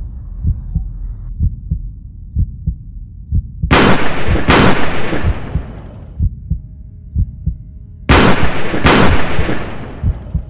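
Film sound design: a regular heartbeat thump runs under two pairs of loud bangs, each pair about a second apart. Each bang is followed by a long fading tail, and the second pair comes about four seconds after the first.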